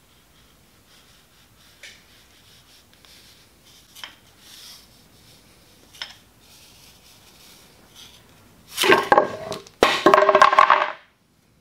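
A knife blade drawn along the edge of a leather belt end to skive it: a few faint scraping strokes, then two loud, chattering squeals of about a second each as the blade skips across the leather, cutting off suddenly.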